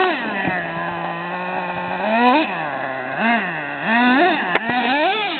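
Small nitro engine of a Traxxas Revo RC truck running at a steady speed, then revved up and down several times in quick blips.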